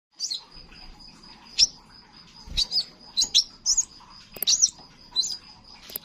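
Crimson sunbird (kolibri sepah raja) calling: a lively run of short, sharp, high chirps, about nine in six seconds, some in quick pairs. A thin steady high tone runs underneath.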